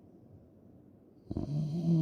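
A person snoring: a quiet breath, then a loud, buzzing snore begins a little past the middle.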